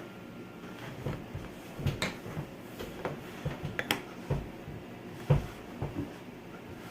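A run of irregular light clicks and knocks, about a dozen over some five seconds, over a steady low hum.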